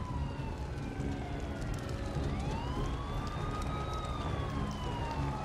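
Two emergency vehicle sirens wailing at once, their pitches slowly rising and falling past each other, over a steady low rumble.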